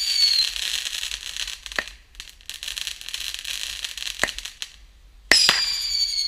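Fireworks going off: a high, slightly falling whistle, then a crackling hiss broken by sharp bangs about two and four seconds in, and another loud whistle starting near the end.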